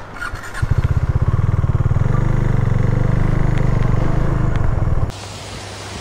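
A vehicle engine running close by with a rapid low pulsing beat, its pitch stepping up about two seconds in. It stops abruptly about five seconds in.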